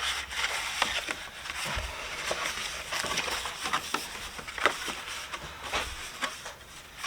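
Paper crinkling and tearing as a package marked "open me" is opened by hand: a run of irregular crackles and rustles.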